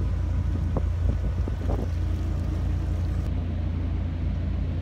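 A narrowboat's engine running steadily as the boat moves along the river, with wind buffeting the microphone. A few light knocks come between one and two seconds in.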